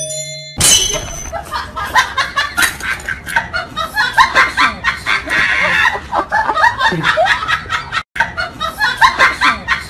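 People laughing hard and continuously, in quick bursts that rise and fall, with a brief break about eight seconds in.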